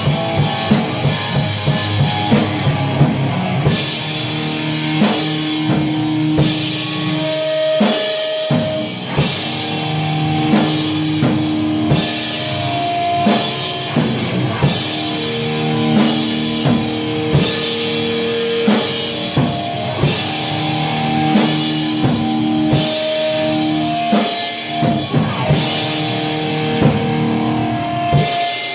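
Metal band recording with drum kit and guitar: fast, dense drumming for the first few seconds, then a slower beat under long held notes.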